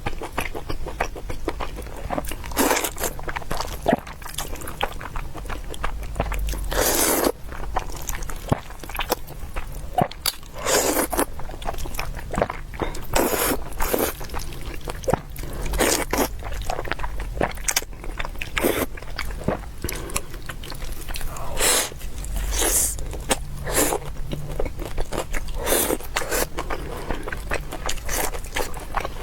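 Close-miked eating sounds from a person eating spicy fire noodles: wet chewing and biting with many short clicks, broken by several longer noisy draws.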